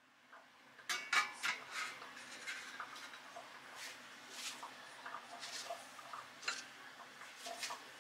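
Ceramic ramekins set down on a perforated stainless-steel steamer rack: a series of clinks and knocks, the loudest just after a second in, over a faint steady low hum.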